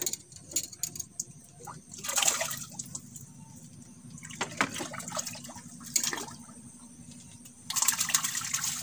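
A hooked tilapia splashing at the water surface as it is reeled in: short splashes about 2, 4.5 and 6 seconds in, and a longer bout of splashing near the end.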